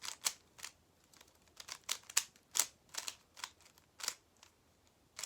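Plastic speed cube being turned quickly by hand during a solve: a run of sharp, irregular clicks, about three a second.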